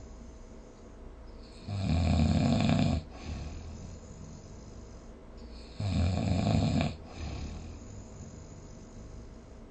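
A person snoring: two loud snores, each about a second long and about four seconds apart, with quieter breathing between them.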